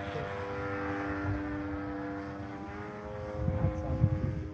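Radio-controlled model airplane in flight overhead, its motor and propeller giving a steady pitched drone that dips slightly about halfway through. Low rumble in the last second or so.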